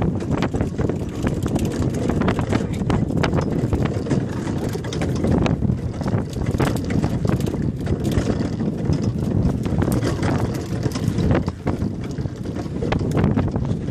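Wind buffeting the microphone aboard a small fishing boat at sea, over a steady rumble of boat and water. Irregular sharp knocks and splashes come throughout as a net full of flying fish is worked alongside the hull.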